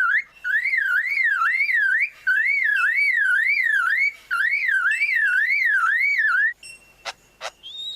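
Male superb lyrebird mimicking a car alarm: a clear tone warbling up and down about two and a half times a second, in three long runs with short breaks. Near the end the run stops and two sharp clicks follow.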